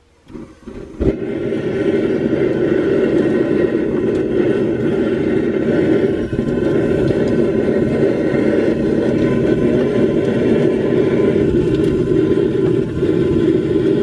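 Homemade propane forge burner being lit: a few sputters, a sharp whump as it catches about a second in, then the flame burning steadily with the burner turned fairly low.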